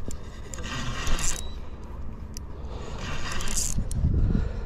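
Spinning reel working against a hooked carp: two bursts of mechanical whirring, each about a second long, with low rumbling near the end.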